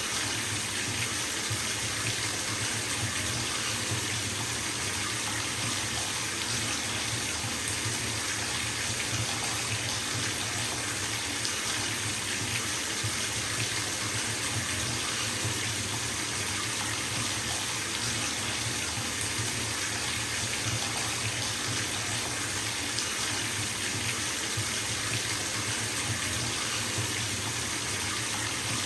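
Bathtub filling from its tap: a steady, even rush of water pouring into the tub.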